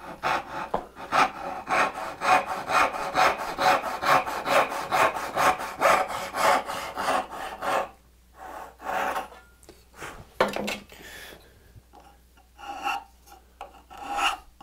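Fine-toothed backsaw crosscutting a wooden board held in a vise, in quick even strokes about three a second, stopping about eight seconds in. A few scrapes and knocks follow as the saw is set down, then several strokes of a fine file across the freshly sawn end grain near the end.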